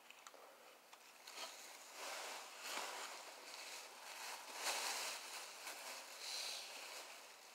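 Irregular rustling and handling noise close to the microphone, coming in uneven waves.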